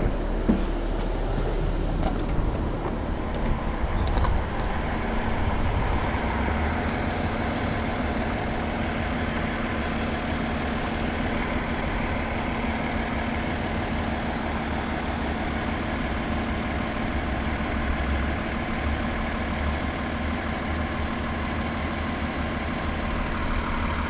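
2009 New Flyer D40LFR transit bus with its Cummins ISL diesel running steadily at an unchanging pitch. A few sharp clicks and knocks sound in the first few seconds.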